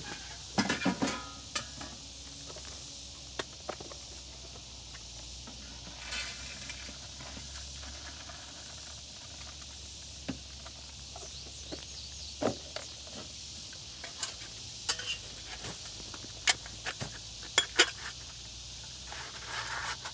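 Scattered clicks, knocks and short rustles of a plastic bee cocoon release tray being handled and set into a nesting shelter, with a few steps near the start. Behind them is a steady high insect chirr.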